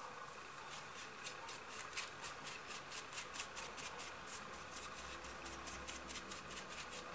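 A brush quickly rubbing over crumpled silver metal leaf on a molded piece, brushing off the excess leaf: faint, dry rustling strokes, several a second.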